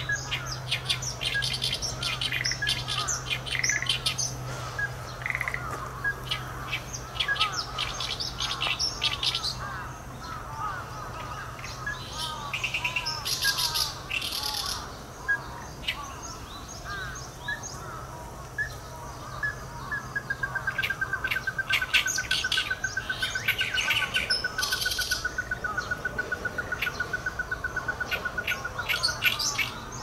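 Ruddy-breasted crake calling: from about twenty seconds in, a long, rapid run of evenly spaced 'kyo' notes that slowly drops in pitch. Other birds keep up chattering, chirping calls throughout.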